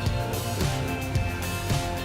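Background music with a steady beat: guitar and drums.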